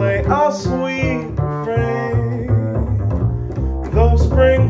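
Upright double bass plucked pizzicato in a jazz walking line, with a male voice singing over it.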